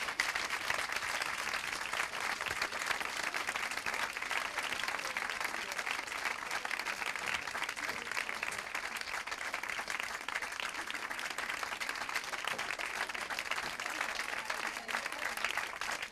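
Audience applauding: many people clapping together in a dense, steady patter that holds at an even level throughout.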